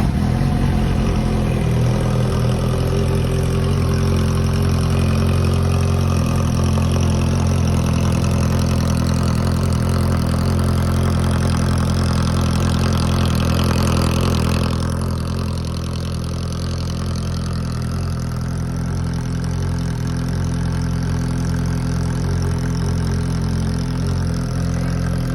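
Suzuki GSX750 motorcycle's inline-four engine idling loudly and steadily. About fifteen seconds in it drops a little in level and then holds steady.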